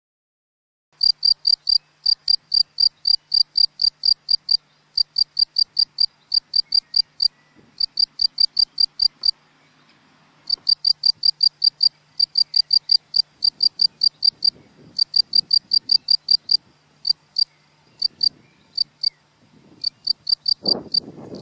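Male field cricket (Gryllus campestris) singing its calling song: loud, high chirps at about four a second, in runs with short breaks, thinning to scattered single chirps later on. Near the end a rustling noise comes in under the chirps.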